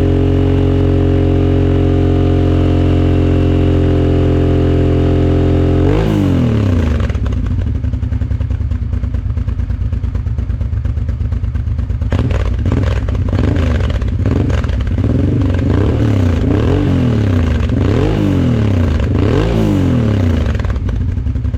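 Honda Transalp 600's V-twin engine running through an Arrow Dakar exhaust. It holds a steady speed, drops back about six seconds in, and then takes a series of quick throttle blips, its pitch rising and falling about once a second.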